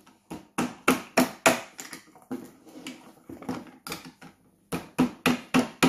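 Hand-held hex driver unscrewing the bolts of an electric unicycle's metal pedal: a run of sharp clicks, about three a second, with a short pause a little past the middle.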